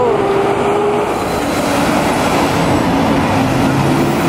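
Heavy city traffic, with a box truck and a garbage truck driving past close by: a loud, steady engine drone over road noise, its pitch sinking slightly as they pass.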